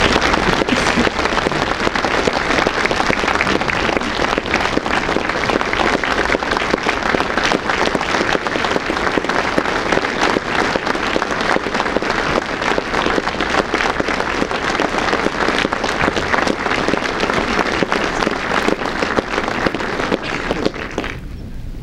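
Large audience applauding, dense, continuous clapping that dies away near the end.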